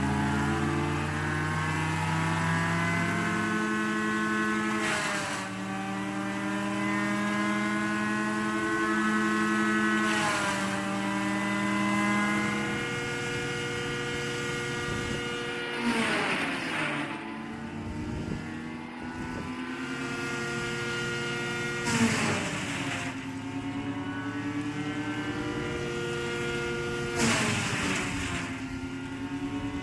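Early-1950s Asplundh mobile wood chipper with a Ford 223 inline-six engine chipping tree limbs under load. Five crackling bursts come about every five to six seconds as the drum bites into the wood, and the engine's pitch dips with each bite and slowly climbs back.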